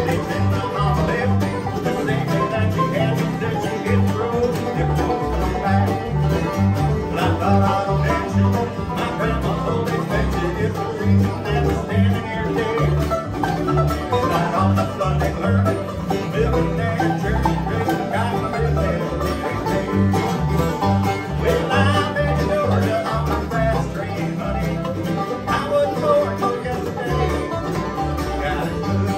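Live bluegrass band playing an instrumental passage: five-string banjo picking, mandolin, acoustic guitar strumming and an upright bass playing a steady alternating bass line.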